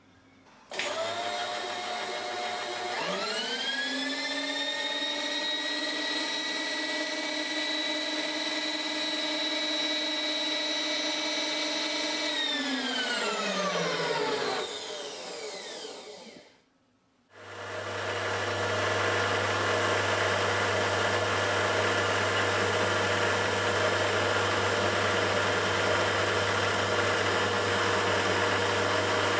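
Warco Super Major milling machine. About three seconds in a motor winds up in pitch, runs steadily for about eight seconds, then winds down. After a brief break the mill runs steadily with a low hum, its end mill cutting along the edge of an aluminium plate.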